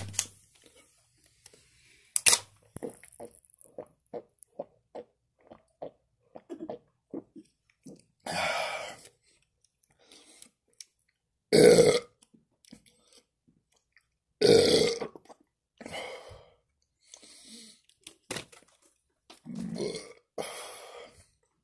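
A man shotgunning a can of drink. A sharp crack near the start and another about two seconds in come as the can is punched open with a thumb. A string of quick, even gulps follows, then a run of loud, long burps.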